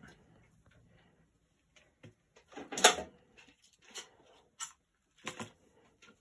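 Handling noises on a leather-covered tabletop: a few separate bumps and rustles, the loudest about three seconds in, as a fixed-blade knife and its leather sheath are set down.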